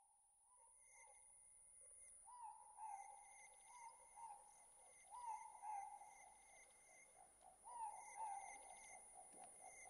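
Faint nature ambience: a steady high insect trill with short chirping bird-like calls repeating about every half second, often in pairs, typical of the nature-sound opening of a meditation music track.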